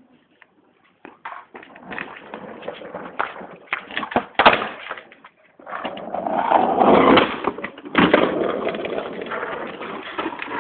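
Skateboard rolling and clacking: scattered knocks of the board and wheels, then a stretch of wheel noise and a sharp board impact about eight seconds in, with the rolling fading after it.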